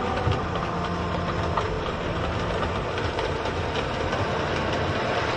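OO gauge model trains running on the layout's track: a steady small electric motor hum with light, irregular clicking of wheels over the rails and rail joints.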